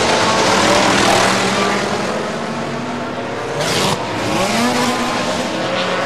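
Ferrari GT race car's engine heard from on board: the engine note falls away and quietens, a short sharp burst of noise comes about four seconds in, then the pitch climbs again as the car accelerates.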